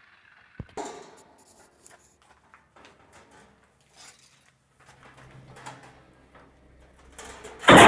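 Scrap metal being handled by hand: scattered light knocks and clicks over a faint low hum, then a loud harsh clatter starting just before the end.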